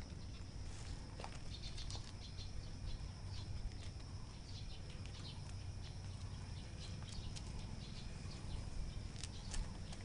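Puppies' paws scrabbling on loose gravel as they tussle: quiet, irregular crunches and small stone clicks.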